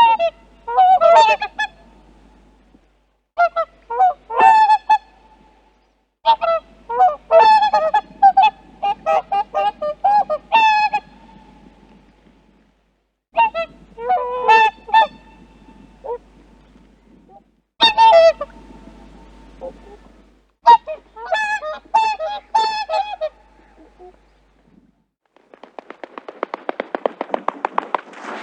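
Geese honking in repeated bouts of several loud calls each, with pauses of a second or two between bouts. In the last few seconds a rising rushing noise begins.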